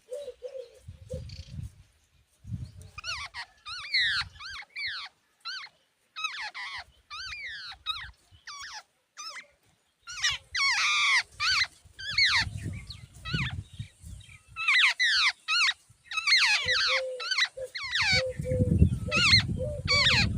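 Jungle babblers calling at the nest: bouts of rapid, harsh calls that sweep in pitch, starting about three seconds in, with a low rumbling underneath near the end.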